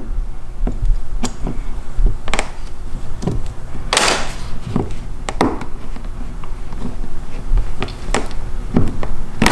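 Plastic trim clips on a BMW E46 M3 door panel being pried and popped loose with a plastic trim tool: irregular clicks, knocks and scrapes, the loudest and longest about four seconds in.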